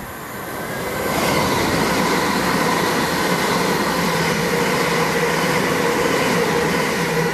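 Stansted Express electric multiple unit running alongside the platform: wheel and motor noise swells about a second in and then holds steady, with a low hum and a whine over it.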